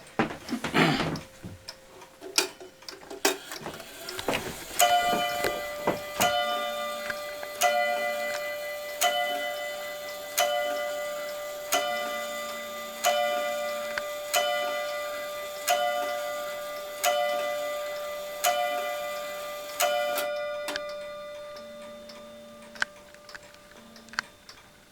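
A clock striking the hour, eleven strokes on a ringing bell about one every 1.4 seconds, each ring fading into the next, with the clock ticking underneath. A few clicks come before the strike begins.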